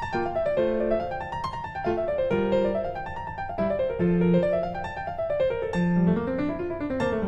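Background piano music, quick runs of notes rising and falling.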